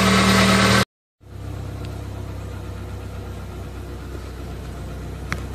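Car engine idling steadily, close up at first. After a brief cut to silence it is heard again, quieter and muffled from inside the cabin, just started cold, with a light click near the end.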